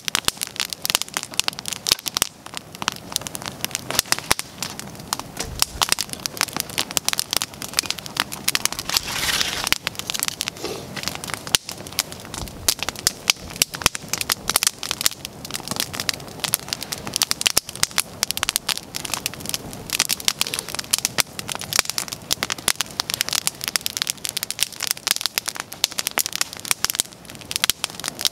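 Wood campfire burning, crackling steadily with a dense run of sharp pops.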